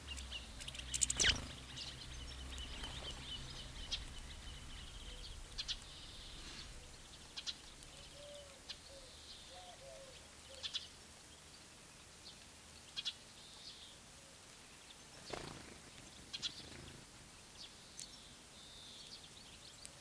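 Small songbirds chirping, likely the European goldfinches and house sparrows feeding on sunflower seeds. Short high chirps come every second or two, with a thin trilling call through the first few seconds and a louder cluster of chirps about a second in.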